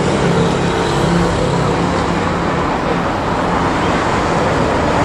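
Steady roar of surrounding city traffic, with a low engine hum that fades out about three seconds in.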